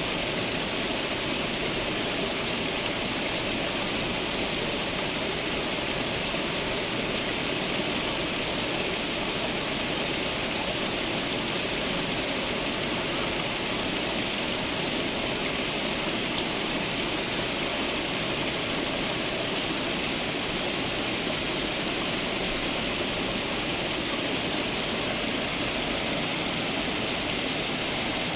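Water from a garden fountain splashing and falling steadily, an even rushing noise with no breaks.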